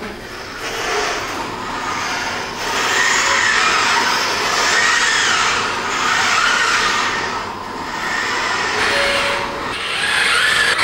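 Baxter robot's arm joint motors whirring as the arms move, the pitch gliding up and down and the sound swelling and easing in waves.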